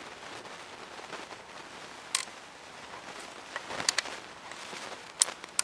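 Several sharp, scattered clicks and taps of PS90 parts being handled and fitted during reassembly, the loudest about five seconds in.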